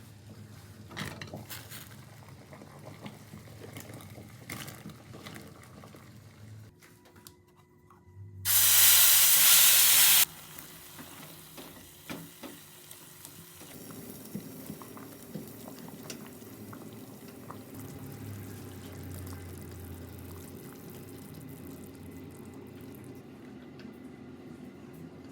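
Kitchen work: scattered clinks and knocks of utensils, then a tap runs hard into the sink for about two seconds and shuts off abruptly. After that comes a steady low hiss.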